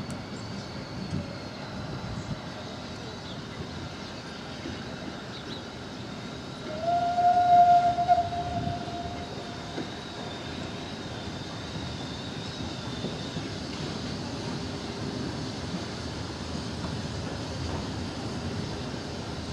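Small saddle-tank steam locomotive moving slowly over the track, with one steam-whistle blast of about three seconds, about seven seconds in; the whistle is the loudest sound.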